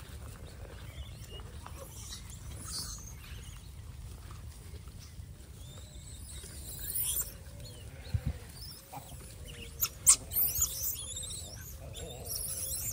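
A troop of gray langurs squeaking and squealing in short high calls at intervals as they crowd in to be fed, with a sharp click about ten seconds in.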